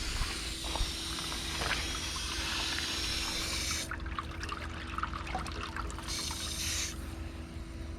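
Sun Joe electric pressure washer spraying water against a pool filter housing. The spray cuts off sharply about four seconds in, a second short burst follows about two seconds later, and there are splashes and drips in between.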